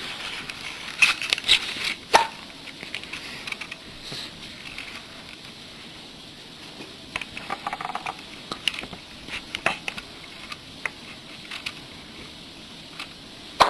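Newborn baby hiccupping: short, sudden hiccups every few seconds, the strongest about two seconds in, with small clicks and rustles in between.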